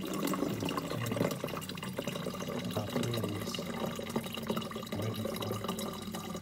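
Water streaming from a Whirlpool refrigerator's door dispenser into a plastic bottle, flushing the newly installed water filter, with a steady low hum beneath.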